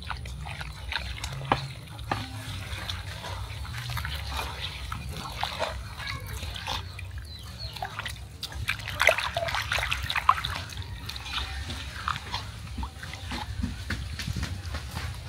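Rice powder being worked with water in a bowl: irregular wet clicks and scrapes, busiest about two-thirds of the way through, over a steady low hum.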